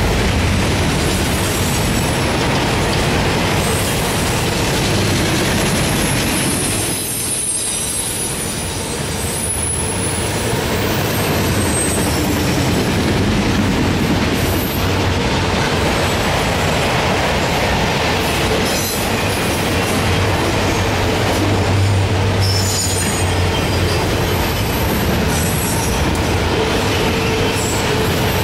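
Enclosed autorack freight cars rolling steadily past: a continuous rumble and rattle of steel wheels on the rails, with high-pitched wheel squeals coming and going.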